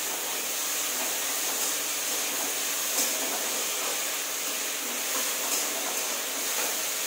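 Spiced mixed vegetables sizzling steadily in a pan on the stove, with a few light clicks.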